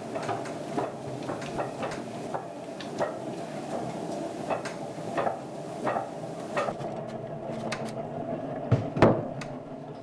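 Potter's wheel turning with a steady hum while wet hands throw a clay pot, giving irregular soft clicks and taps of hands on the clay, with a couple of louder knocks near the end.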